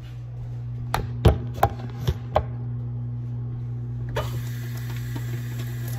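A steady low hum with a few sharp knocks and clicks in the first couple of seconds.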